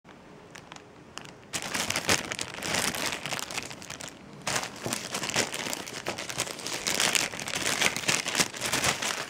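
Clear plastic bag crinkling as hands handle and open it: two long spells of crackling, with a brief lull about four seconds in.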